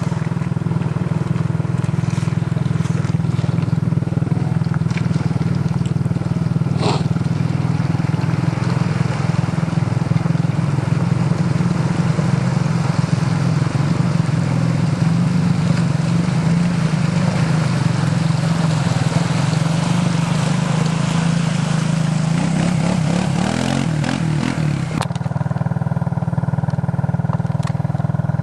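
Suzuki King Quad 300 ATV engines (four-stroke singles) running as a quad drives through a muddy water hole on a trail. The engine revs up near the end, then the rushing noise drops away suddenly.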